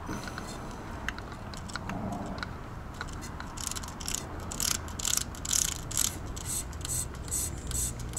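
Hand-squeezed trigger-sprayer pump drawing engine coolant out of an overfilled reservoir and squirting it into a plastic bottle: a few scattered plastic clicks at first, then about two squeezes a second, each a click and a short spray hiss, from about three and a half seconds in.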